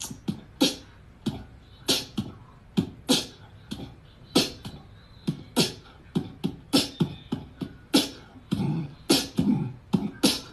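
Beatboxing: sharp hissing hi-hat-like sounds and low thumps in an uneven rhythm, about two hits a second.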